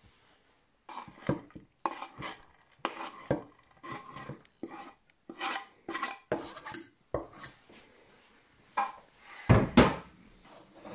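A knife blade scraping chopped candied orange peel across a wooden cutting board and off it into a steel pot, in a run of short scraping strokes. About nine and a half seconds in come a couple of heavier knocks against the pot.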